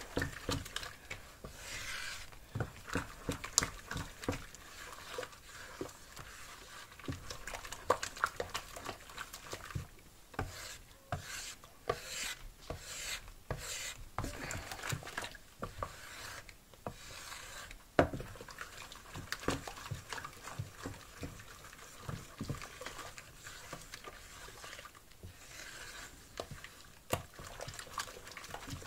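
Wooden spatula stirring soapy water in a plastic bowl to dissolve powdered laundry detergent: swishing and sloshing, with frequent light knocks and scrapes of the spatula against the bowl.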